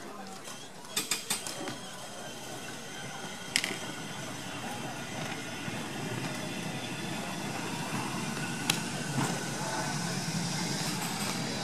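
Glasgow Corporation electric tramcar running along the track: a rumble of wheels and gearing that slowly grows, with three quick sharp clicks about a second in and single knocks around four and nine seconds in.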